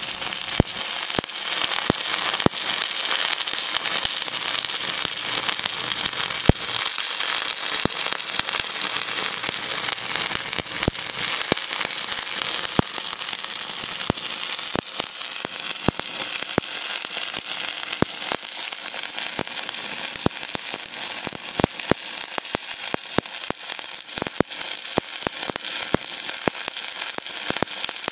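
Stick (SMAW) welding arc crackling steadily, with frequent sharp pops.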